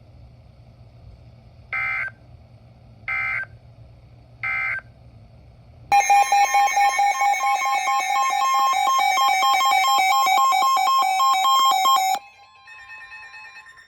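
Emergency Alert System signalling: three short bursts of data tones, the end-of-message code closing a severe thunderstorm warning. About a second and a half later comes the loud, steady two-tone attention signal (853 and 960 Hz) of the next warning, which lasts about six seconds and cuts off sharply.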